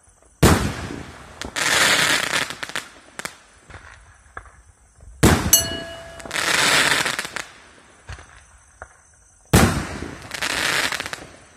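Three 2-inch shot-out aerial firework shells, each fired with a sharp bang and bursting about a second later in a longer hissing spray, with scattered small pops between the shots.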